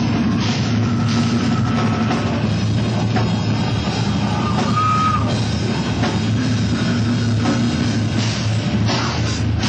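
Grindcore band playing live: distorted guitars and bass over fast drums with crashing cymbals, loud and dense without a break.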